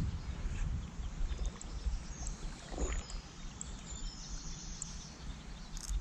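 Wind buffeting the microphone and small waves lapping around a boat on open water, with faint bird chirps about halfway through.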